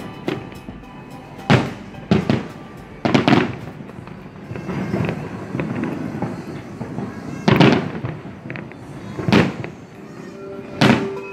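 Firework shells bursting in the sky: six loud bangs, spaced unevenly, each trailing off in a short rumble, with smaller crackles between them. Faint background music plays underneath.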